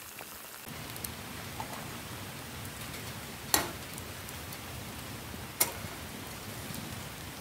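Steady crackle and hiss of a wood fire burning in a small folding camp stove, with two sharp metal knocks a couple of seconds apart as the pot is set down on the grill and back onto the stove.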